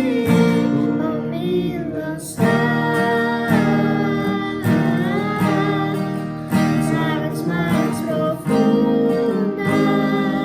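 Music: a worship song with strummed acoustic guitar and a sung melody.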